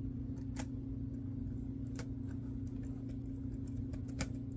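A few faint clicks of a small precision screwdriver working a screw into a model railroad car's plastic coupler mount, the sharpest about four seconds in, over a steady low hum.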